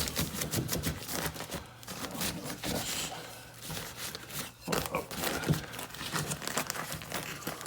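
Irregular crinkling and rustling of materials being handled, with scattered light clicks and knocks.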